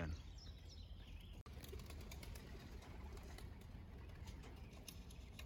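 Quiet outdoor ambience with faint pigeon sounds and a few faint bird chirps in the first second.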